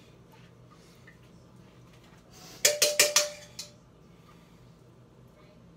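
A metal spoon clinking and scraping against a stainless steel mixing bowl while scooping cookie dough: a quick run of four or five clinks about two and a half seconds in, the bowl ringing briefly after them.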